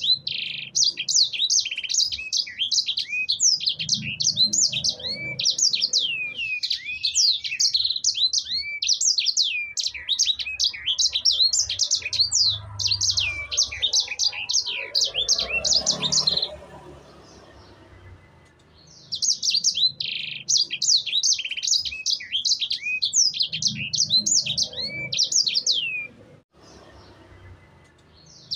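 Yellow-fronted canary (sanger, Mozambique canary) singing a fast, high, twittering song of rapid sweeping notes. It sings in two long bouts with a pause of a couple of seconds between them, and a third bout starts at the very end.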